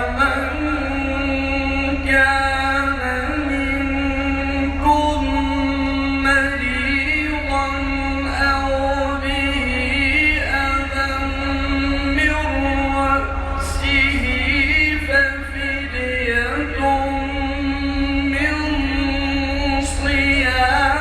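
A man reciting the Quran melodically in a maqam, his voice gliding and ornamenting in long phrases over a steady held drone.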